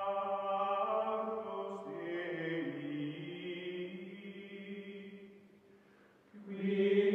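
Outro music of choir-like chanting on long held notes that shift in steps. It fades almost out about six seconds in, then swells back in louder.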